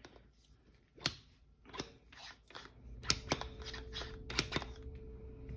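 Tamping freshly ground coffee into an espresso portafilter basket: soft crunching and scraping of the grounds with several sharp clicks and knocks of the tamper against the metal basket. A steady low hum starts about three seconds in.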